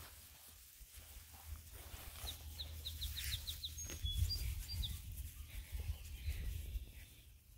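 A small bird calling: a quick run of about eight short high chips, then a few short whistled notes, over an uneven low rumble.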